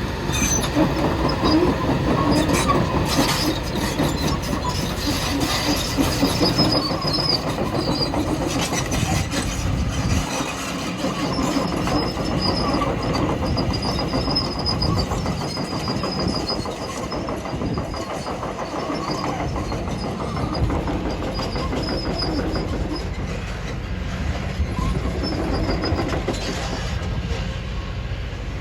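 Kobelco SK 220HD LC crawler excavator working: its diesel engine runs steadily under load with repeated metallic clanking and a thin high squeal that comes and goes. The clanking is heaviest in the first several seconds.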